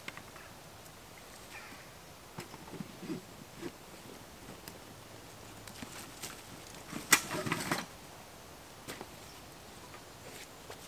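Scattered rustles and light knocks of a dog walking over dry fallen leaves and of gear being handled on a groundsheet, with a louder burst of rustling about seven seconds in.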